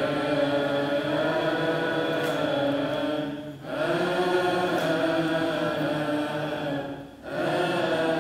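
Congregation chanting a Coptic liturgical response in unison, in long drawn-out notes sung in three phrases, with short breaks about three and a half and seven seconds in.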